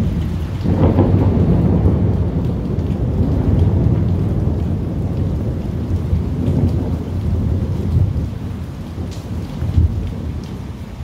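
Thunder rumbling over steady rain. The rumble swells about a second in, rolls on for several seconds and eases toward the end.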